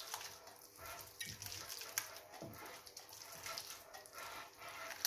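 Faint, irregular scraping and squelching of a spoon stirring a thick dressing of mustard, olive oil and lemon juice in a bowl, with a small click about two seconds in.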